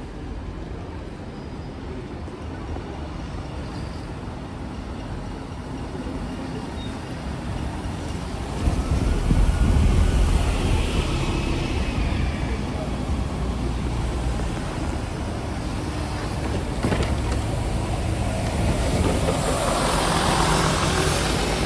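Street traffic with buses running: a bus passes close with a deep engine rumble about nine seconds in, then a Scania N94UD double-decker bus draws up alongside, its diesel engine running, and the sound grows louder near the end.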